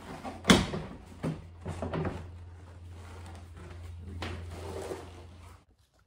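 Plastic door trim panel of a Mitsubishi Magna being pushed up and lifted off the door: one sharp, loud knock about half a second in, then several smaller knocks and scrapes of plastic against the door. A low steady hum runs underneath and stops shortly before the end.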